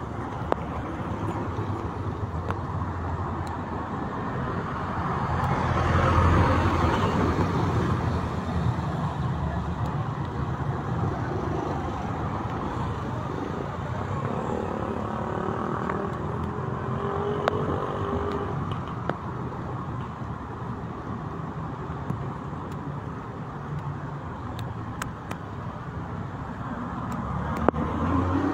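Road traffic passing on a wet street, with the wash of tyres on the wet road and engines going by. The loudest pass comes about six seconds in.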